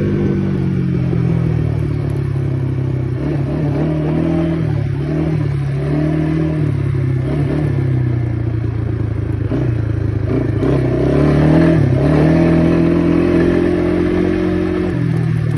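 ATV engine running while riding, its speed rising and falling several times as the thumb throttle is worked, then holding steady near the end.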